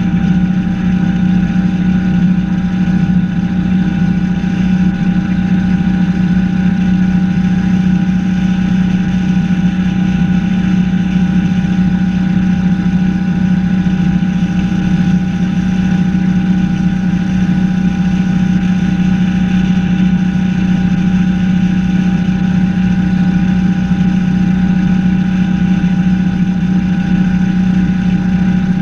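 Engine of a 21-foot Chaparral H2O bowrider running steadily while the boat cruises: a constant drone with a strong low hum, over a steady rush of water and wind.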